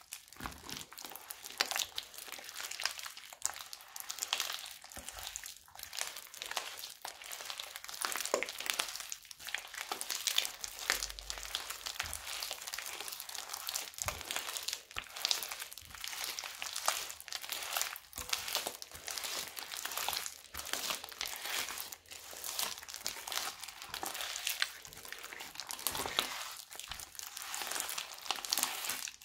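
Hands kneading, squeezing and stretching crunchy slime packed with small foam beads: a dense, irregular run of crackles and pops as the beads are crushed in the slime.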